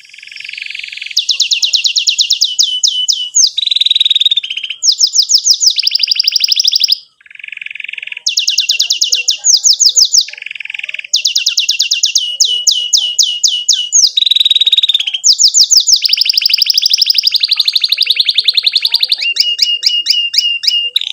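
Domestic canary singing a long, continuous song: phrases of rapid repeated down-slurred chirps alternate with dense, buzzy rolling trills, with only brief breaks between phrases.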